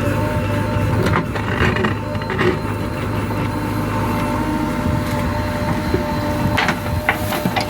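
JCB 3DX backhoe loader's diesel engine running steadily under work, with a steady whine above the engine hum. Several short knocks and clanks come through, a few in the first few seconds and two more near the end.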